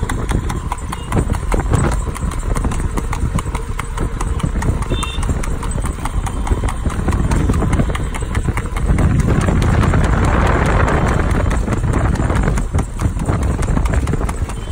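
Harness horse's hooves striking the asphalt in a fast, rapid clip-clop as it trots pulling a two-wheeled racing cart. A louder rushing noise swells about nine seconds in and lasts around three seconds.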